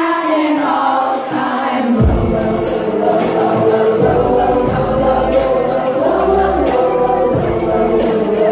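Live pop concert heard from the audience: a woman sings into a microphone, and about two seconds in the band's bass and drums come in beneath her voice.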